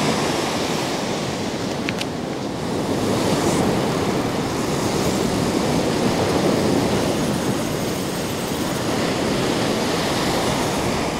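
Surf breaking and washing up a sandy beach in a steady rush, with a single faint click about two seconds in.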